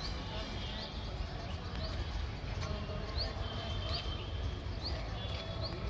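Low, steady outdoor rumble with a small bird repeating short, high rising chirps, roughly one or two a second.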